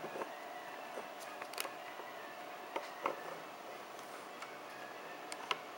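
A handful of short, sharp clicks at irregular intervals, the loudest near the start and about five seconds in. They are most likely the buttons of a Logitech M175 wireless mouse being clicked as it is tried out on a laptop.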